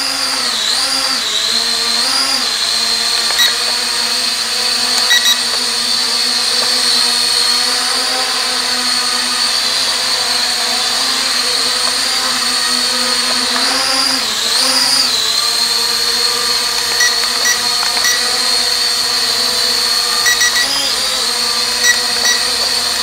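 Small toy quadcopter drone's four motors and propellers running with a steady high whine as it lifts off the floor and flies around the room. The pitch dips and swoops briefly near the start, around the middle and near the end as the throttle changes.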